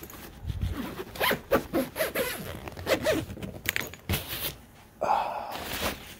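A zipper being pulled in several quick strokes, with rustling and knocks of things being handled, and one longer pull about five seconds in.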